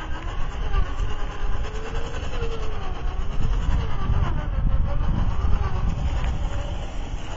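Traxxas TRX-4 RC crawler's electric motor and geartrain whining as it crawls over rock, the pitch rising and falling with the throttle, over a low rumbling noise.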